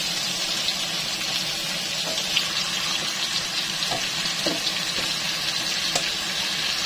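Raw chicken drumsticks frying in hot oil in a pan: a steady sizzling hiss with a few light clicks as the pieces settle.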